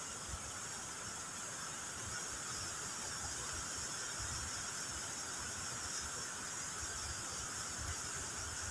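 Steady high-pitched insect chorus with a continuous buzzing drone, and faint low bumps underneath.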